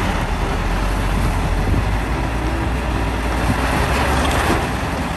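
Caterpillar 352F hydraulic excavator's diesel engine running under load as it digs and loads soil into a dump truck: a steady low rumble with a noisy haze over it.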